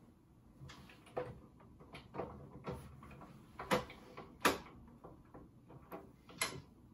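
A stack of book pages being shifted and squared up by hand on the bed of a guillotine paper cutter: about a dozen irregular light knocks and taps, the loudest two a little past the middle.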